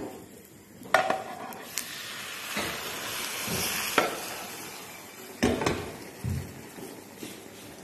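A potato omelette being turned in a frying pan: it sizzles in the hot oil as it slides from a plate back into the pan, with knocks and clatter of the pan and plate against the gas hob. The sizzle swells in the middle, and there are single sharp knocks about a second in, around four seconds and around five and a half seconds.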